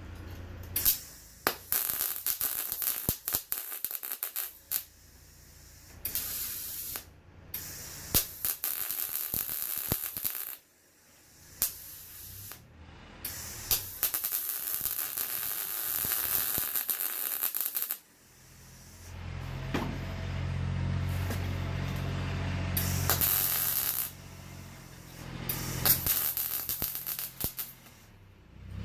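Welding arc on thin sheet steel crackling and sizzling in a run of short bursts, each a second or a few seconds long, stopping and restarting as the seam on a rusted VW bus panel is filled. A low machine drone runs underneath through the second half.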